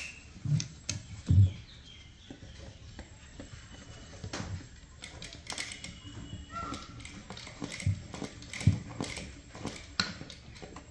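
Irregular clicks and a few soft thumps from a sewing machine's mechanism being worked slowly, with the fabric shifted under the needle.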